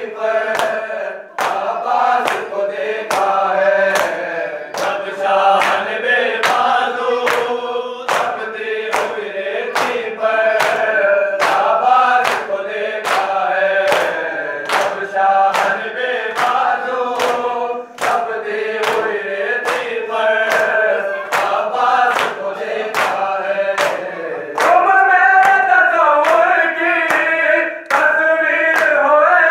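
Men chanting a noha, a Shia mourning lament, in unison, led at a microphone, with a steady beat of open-hand chest-beating (matam) slaps marking the rhythm.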